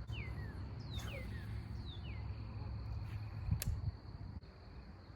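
A bird whistling three slurred notes, each falling in pitch, about a second apart, over a steady high insect drone. A single sharp click sounds about three and a half seconds in.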